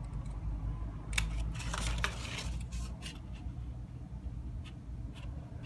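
Scissors snipping through paper to cut out a small corner square: a run of short, sharp cuts with paper rustling about a second in, then a couple of single snips near the end.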